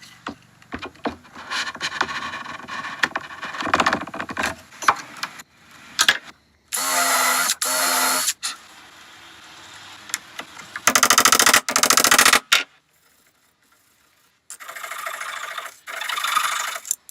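A power tool run in three short bursts of one to three seconds each. Before them there is wood being rubbed, scraped and knocked.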